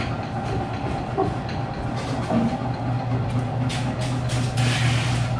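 Machinery running steadily with a low hum and light clattering, with a burst of hiss near the end.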